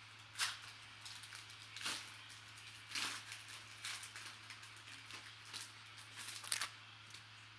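Cardboard trading cards being flipped through by hand: short papery swishes and snaps as cards slide off the stack, about six over several seconds, with a quick cluster near the end that is the loudest.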